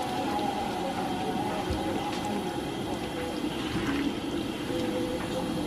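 Singaras deep-frying in a pan of hot oil, a steady bubbling sizzle.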